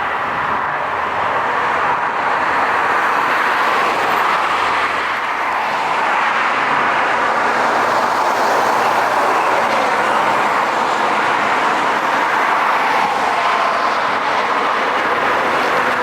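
Jet airliner engines at takeoff power, a steady loud rushing noise.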